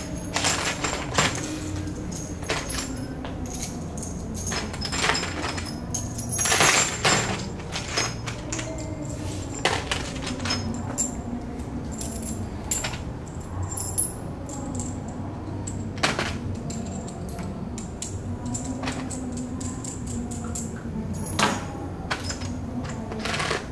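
Small steel bolts and nuts clinking against each other and against a plastic box as they are picked out and screwed together by hand, with scattered sharp clicks every second or two.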